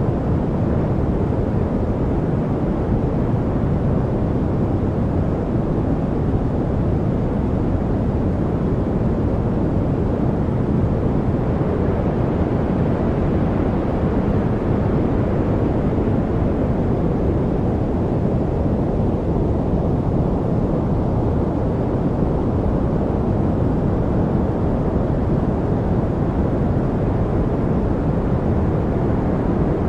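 Steady noise track played for studying: an even, deep rush with most of its weight low down and little hiss on top, like brown noise rather than bright white noise.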